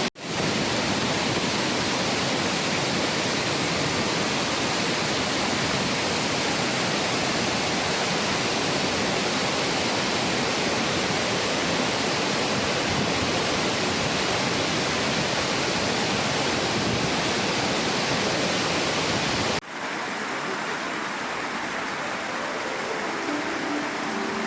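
Rushing water, a steady unbroken roar. About 20 seconds in it cuts suddenly to a softer, duller water rush, and a few soft musical notes come in near the end.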